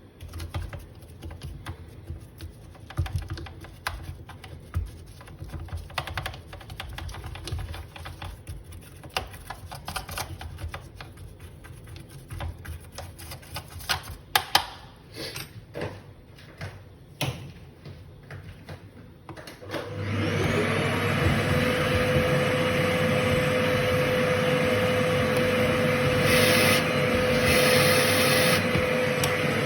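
Light scraping, tapping and clicking of cleaning tools on the grinder's parts. About twenty seconds in, an electric motor spins up and runs steadily with a loud whir and a held tone.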